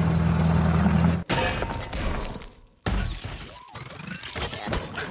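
Action-film sound effects: a steady low drone that cuts off sharply about a second in, then crashing with metal wreckage clattering and scraping. A second loud crash comes in near the three-second mark.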